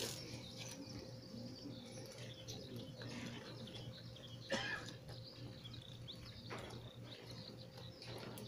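Small birds chirping now and then over a low outdoor background, with one sharp knock about halfway through.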